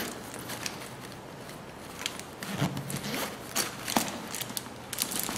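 Hands rummaging inside a coated-canvas travel bag: rustling and rubbing, with several short sharp scrapes and crinkles of the paper stuffing from about halfway through.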